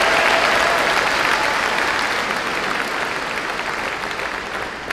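A crowd applauding, the clapping dying down gradually toward the end.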